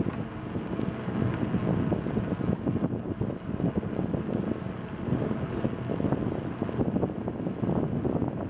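Wind buffeting the microphone of a camera riding on a moving bicycle, a steady low rumble with constant small irregular rattles and crackles from the ride over the paved trail.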